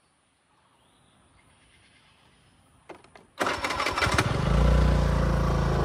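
Near silence for about three seconds, then an engine starts abruptly and runs loud and steady.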